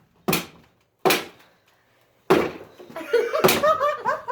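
Four sharp snaps of a hand staple gun fired against a wooden pallet, about a second apart. The gun is broken and isn't setting staples properly.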